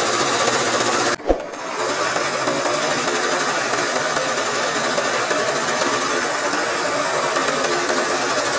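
Sewing machine running steadily as it stitches free-motion embroidery through fabric stretched in a hoop. About a second in, the run breaks off briefly with a single sharp knock, then picks up again.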